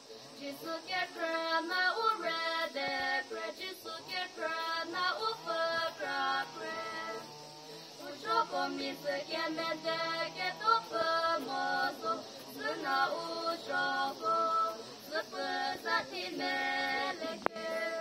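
Two young girls singing a duet, in phrases broken by short pauses.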